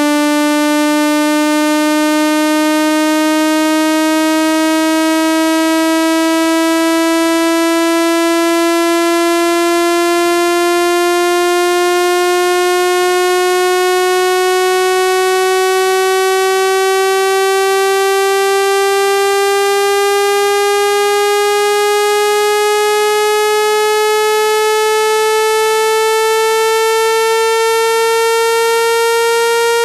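Electronic water-eject tone for clearing water out of a phone or speaker: a single buzzy synthesized tone, rich in overtones, rising slowly and steadily in pitch at an unchanging loud level.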